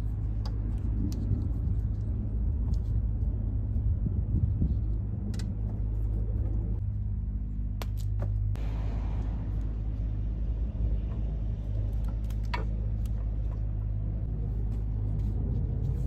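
Steady low mechanical hum and rumble, with a few sharp clicks scattered through.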